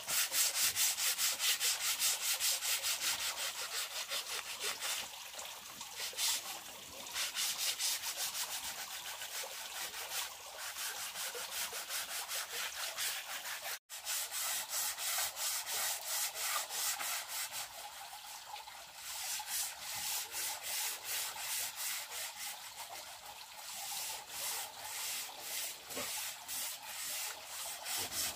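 Sandpaper rubbed over wood by hand in rhythmic back-and-forth strokes, a few a second, with a momentary break a little before halfway.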